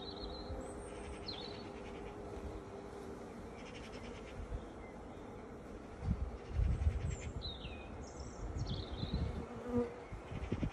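Honeybees buzzing around an open hive with a steady hum. From about six seconds in, irregular low thumps and rumbles are louder than the buzz.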